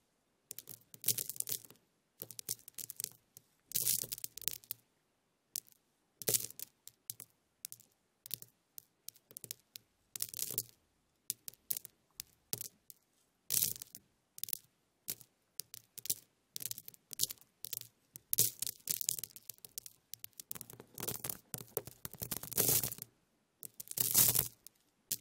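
Small, dry crackling and rustling in short irregular clusters of tiny snaps, each lasting a second or less, separated by brief silences. The densest and loudest clusters come near the end.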